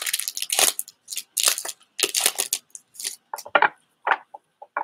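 A foil Pokémon booster pack being torn open and crinkled in the hands, a quick run of rustling tears. Toward the end it thins to shorter rustles and light ticks as the cards are slid out and handled.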